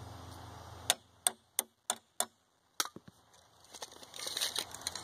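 Hammer tapping the nails of a Granberg chainsaw-mill rail bracket into the end grain of a log: about six sharp taps, roughly three a second, then a brief rattle near the end.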